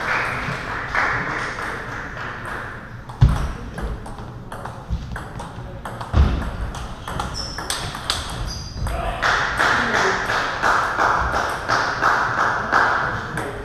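Table tennis balls clicking off bats and tables, rallies from this table and from nearby tables overlapping in a large hall. Two heavy thuds stand out about three and six seconds in.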